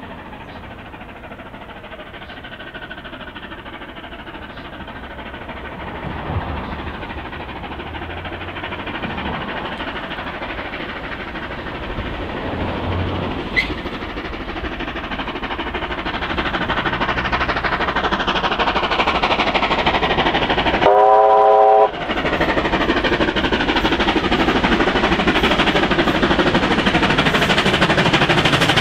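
NSWGR C38 class 4-6-2 steam locomotive 3801 approaching under steam with a train of carriages, its exhaust and running noise growing steadily louder. About three-quarters of the way through it sounds a whistle of several tones together for about a second.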